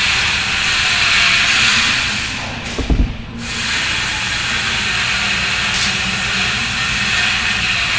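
A steady hiss, broken about three seconds in by a few short low thumps while the hiss briefly drops away.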